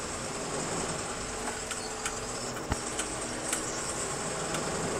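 Lorry engine idling steadily, with a few light clicks and taps over it.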